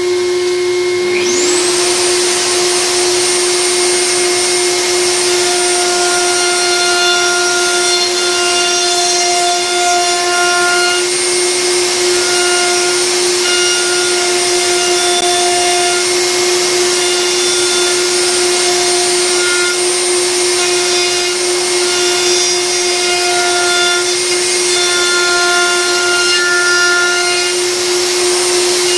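Table-mounted router with a bearing-guided bit, a whine that rises in pitch about a second in and then runs steadily. From about five seconds in, extra notes come and go as the bit cuts the edge of a wooden cutting board fed against it.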